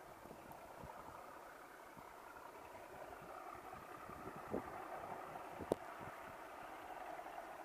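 Diesel train engine running steadily, faint and growing slightly louder as the train approaches, with two sharp knocks in the second half.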